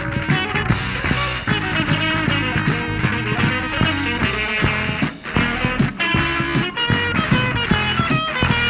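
Rock band playing an instrumental passage of the song with no vocals, with a steady beat of drum hits under held, pitched instrument lines.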